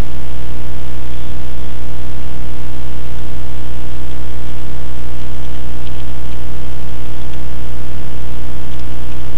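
Loud, steady electrical hum with many evenly spaced overtones, unchanging throughout. A few faint computer keyboard clicks sound over it.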